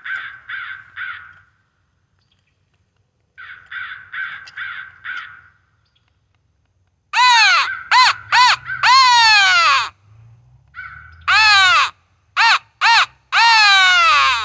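Electronic crow caller playing recorded calls at high volume: two runs of five short crow caws, then from about halfway a much louder series of falling squeals, the caller's mouse distress call used to draw crows in.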